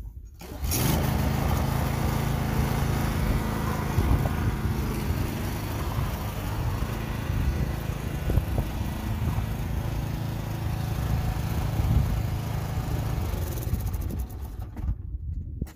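Toro TimeMaster 30-inch walk-behind mower engine starting up under a second in and running steadily while the self-propelled mower drives itself up a trailer ramp, then shutting off about a second before the end.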